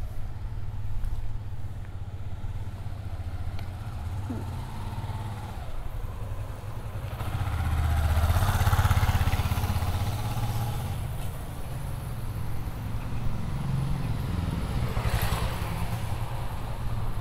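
Motorbikes riding past on a narrow street over a steady low rumble. One swells up and fades away about halfway through, and another passes close near the end.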